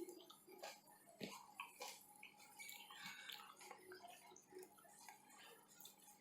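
Faint eating sounds from chicken curry with rice: scattered wet clicks, smacks and squishes from chewing and handling the food.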